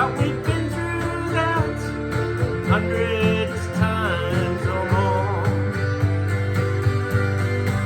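Acoustic guitar strummed in a steady country rhythm, with a wavering melody line over it, a solo cover of a folk song.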